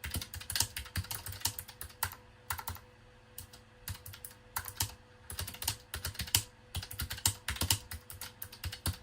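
Typing on a Keychron K1 low-profile mechanical keyboard: irregular runs of sharp key clicks with short pauses, sparser around the middle.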